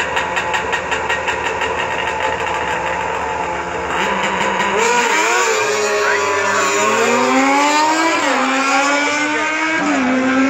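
Two snowmobile engines at the start line of an asphalt drag strip, pulsing fast at idle. About four to five seconds in they launch and pull away down the strip, engine notes climbing in pitch and dipping as they accelerate.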